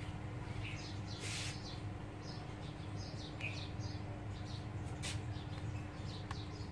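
Small birds chirping in the background in short scattered calls, over a steady low hum. A brief hiss comes about a second in, and a sharp click just after five seconds.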